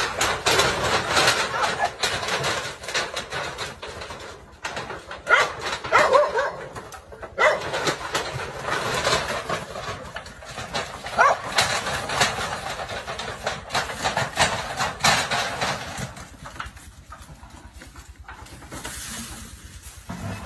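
Dogs barking in loud, uneven bursts while confronting a snake. The barking dies down over the last few seconds.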